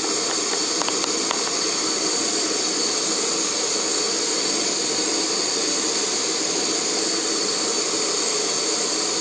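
Optimus Crux gas canister stove burning with a steady hiss under a pot of water that is heating but not yet boiling.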